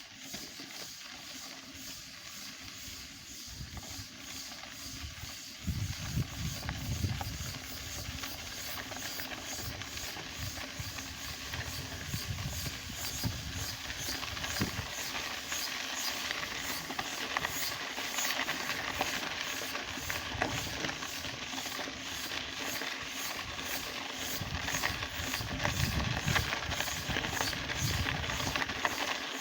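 Cicada singing: a continuous high, hissing buzz with an even, rapid pulse, growing a little louder after about six seconds.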